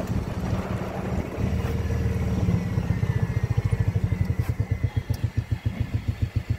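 Gas golf cart's small engine running as the cart moves, then settling from about halfway into slower, distinct low pulses as the cart slows to a stop.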